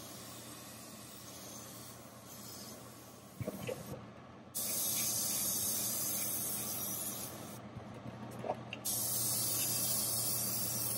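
Iwata Neo airbrush spraying a white base coat in long hissing passes, the air cutting off briefly twice as the trigger is let go. A few light clicks, over a steady low hum from the spray booth's exhaust fan.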